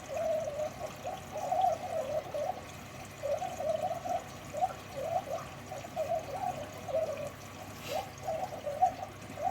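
Beko washing machine filling with water for a rinse: water runs in through the inlet and splashes unevenly into the machine.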